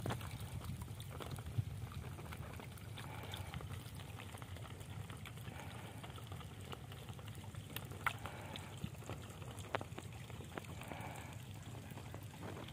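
Faint outdoor ambience: a steady low rumble with a few faint clicks and ticks scattered through it.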